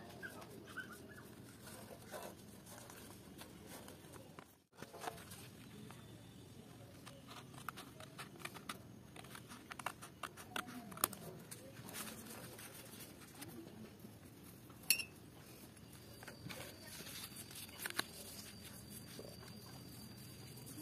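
Light handling noise: scattered small clicks and taps as a thin sheet is handled, slit with a blade and wrapped around a steel pipe, with one sharper tick about three-quarters of the way through.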